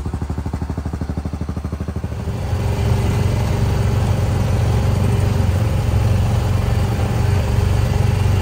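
Small utility vehicle (Gator) engine idling with a fast, even pulsing beat, then revving up about two seconds in and running steadily and louder.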